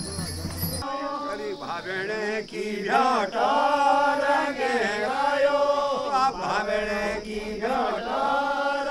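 Devotional singing in a slow, chant-like melody with long held notes. It starts about a second in, right after a brief jingling of bells cuts off.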